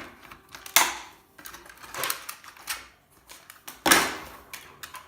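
Irregular clattering and knocks of paper-shredder parts being handled and pulled apart during a teardown, with two louder knocks, about a second in and near four seconds.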